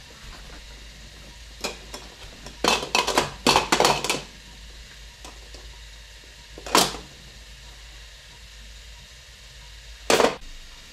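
A few sharp knocks and clatters of small hard objects, with a quick run of them about three to four seconds in and single knocks later, over a steady low hum and hiss.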